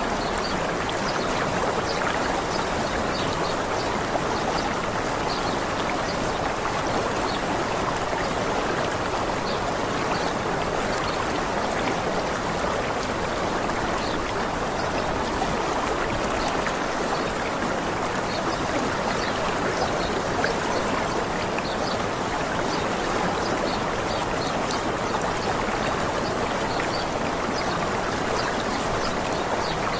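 Small waterfall or stream, a steady rush of falling water, with faint short bird chirps scattered through it.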